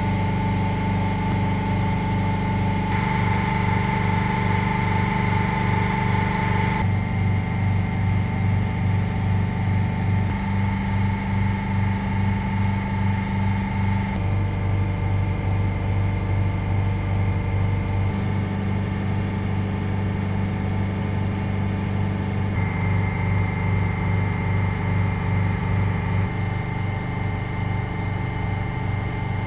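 Two Bitzer 6J-33.2Y six-cylinder semi-hermetic reciprocating refrigeration compressors running steadily together: a deep, evenly pulsing hum with a faint higher whine.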